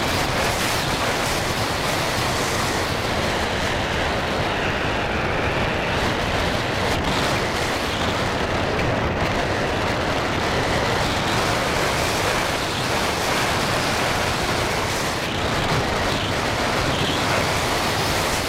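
Steady wind rushing over the microphone, an even roar with no engine tone in it.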